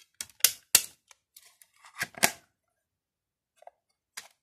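Plastic CD jewel case clicking and snapping as it is handled and shut: a run of short, sharp clicks, the loudest about two seconds in, with a couple of fainter ticks near the end.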